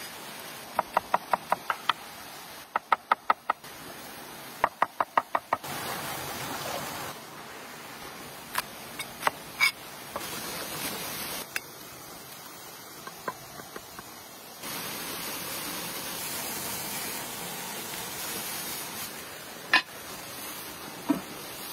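Three quick runs of sharp knocks, about six a second, in the first several seconds, followed by a few scattered single knocks and clicks over a steady outdoor hiss.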